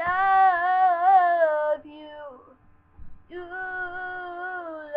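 A girl singing two long held notes without words, the pitch wavering, with a short break in the middle.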